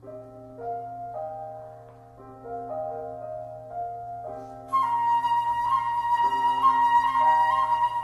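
Classical flute and piano duet: soft piano chords change every half second or so, then about halfway through the flute comes in loudly on a long high held note, wavering slightly, over the piano.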